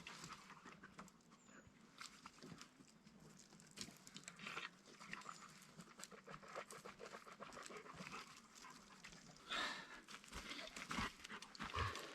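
A dog panting faintly, with scattered small clicks and knocks.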